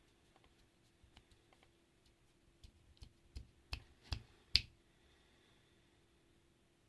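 Irregular sharp clicks, sparse and faint at first, then a run of about six louder ones between roughly two and a half and five seconds in, each louder than the last. The loudest is followed by a brief faint ringing.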